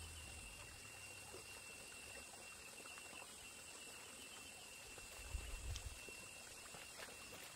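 Faint, steady trickle of running water under a constant thin high tone, with a brief low rumble about five seconds in.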